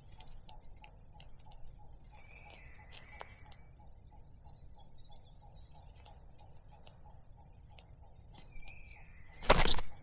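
Young cuckoo chick flapping its wings in the nest: a brief loud rustle near the end. Before it come two faint short chirps and a soft steady ticking of about four a second.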